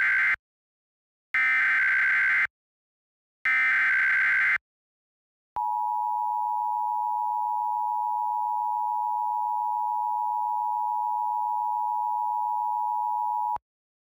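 Emergency Alert System tones: three roughly one-second bursts of the SAME data header, a buzzy warbling chirp repeated about a second apart, the first already under way at the start. After about a second's pause the two-tone EAS attention signal sounds steadily for about eight seconds, then cuts off abruptly.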